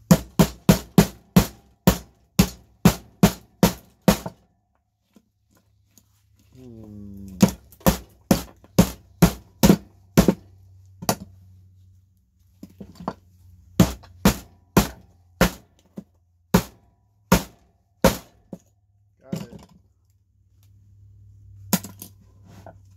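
A steel-headed Estwing hammer striking a circuit board on a wooden workbench, breaking open a component on the board. The blows come in quick runs of about three a second, with pauses between runs and two last single blows near the end.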